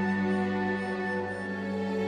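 Soft, slow instrumental background music with held notes.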